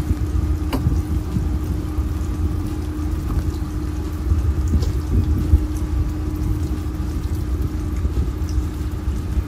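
Fishing boat's engine running steadily: a low rumble with a constant hum, and a single sharp click about a second in.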